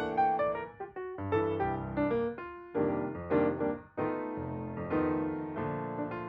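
Background music: a solo piano playing a gentle melody over chords, notes struck and left to ring.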